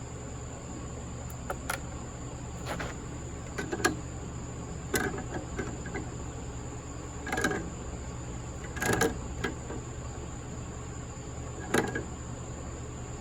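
Scattered short knocks and clinks of hand tools and metal parts being handled, about seven in all, over a steady low hum with a thin high tone above it.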